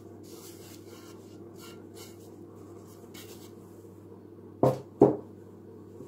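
Gloved hands stirring and rubbing loose soil in a plastic basin, with soft gritty scrapes about twice a second over a low steady hum. A little past halfway through come two loud, sharp knocks half a second apart.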